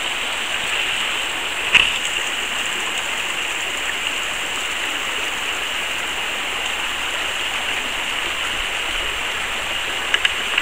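Small waterfall on the Abin River: water splashing and rushing steadily, with a sharp click about two seconds in and two more clicks near the end.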